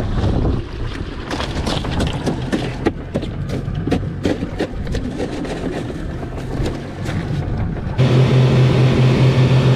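Wind and water noise with scattered sharp clicks and knocks of handling on a boat deck, then, about eight seconds in, twin outboard motors running the boat at speed: a loud, steady drone over rushing water.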